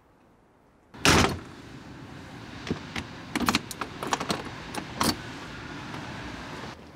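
A loud knock about a second in, then a run of metallic clicks and rattles as a key turns in a door's cylinder lock and is pulled out.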